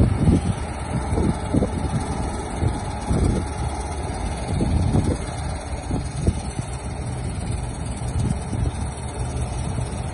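John Deere 1170 combine harvester running while cutting wheat: a steady engine and threshing drone, with gusts of wind buffeting the microphone.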